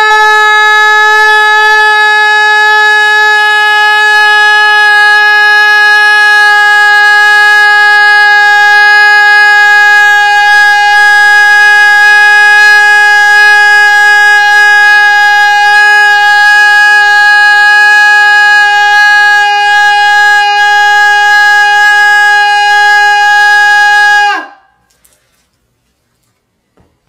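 One loud, long held note at a dead-steady pitch, horn-like, lasting about twenty-four seconds and then dipping slightly in pitch as it cuts off.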